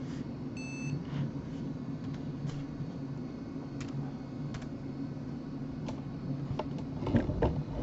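Toshiba Portégé 660CDT laptop booting up: a steady low hum with scattered light clicks, a short high beep under a second in, and a cluster of louder clicks and knocks near the end.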